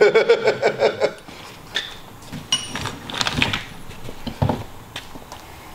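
Metal engine parts and hand tools clinking and knocking as the engine is taken apart, with one short ringing metal clink about two and a half seconds in.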